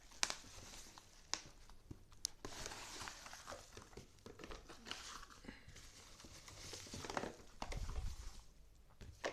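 Packaging crinkling and rustling as speakers are handled out of their box, with a few sharp clicks in the first couple of seconds and low handling bumps near the end.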